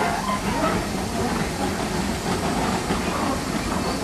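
Narrow-gauge steam train drawing in slowly on the next track beside a standing steam locomotive: a steady rumble and hiss of locomotive and carriages.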